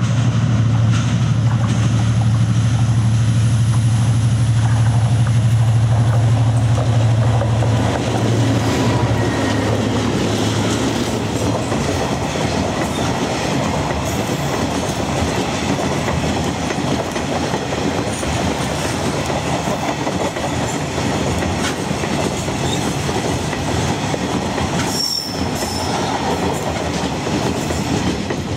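Diesel freight locomotive running with a steady low drone as it approaches, then a string of freight wagons rolling past with the rumble and clatter of steel wheels on the rails. A brief high-pitched wheel squeal comes near the end.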